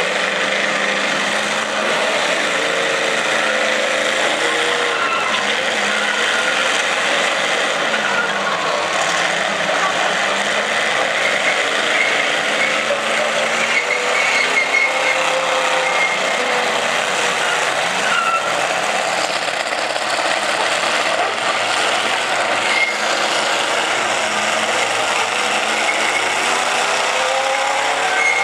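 Several demolition-derby cars' engines running and revving together, their pitches rising and falling as the cars push and ram one another.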